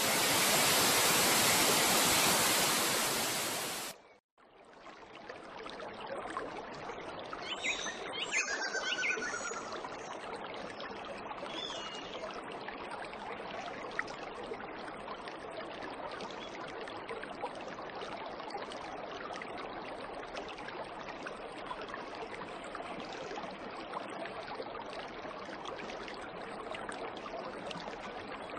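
Waterfall rushing steadily, with birds calling in a short burst of chirps and sliding notes about eight seconds in and single calls later. It opens with a louder rush of noise that cuts off sharply about four seconds in.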